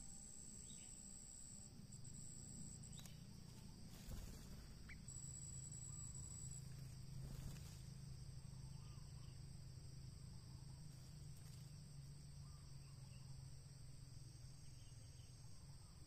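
Faint, steady insect trilling with a thin high whine above it, and a few soft clicks.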